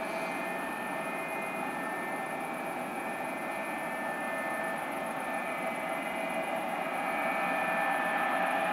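McDonnell Douglas MD-82's two rear-mounted Pratt & Whitney JT8D turbofans running as the airliner taxis, a steady jet whine over a rushing rumble. The sound grows slightly louder near the end.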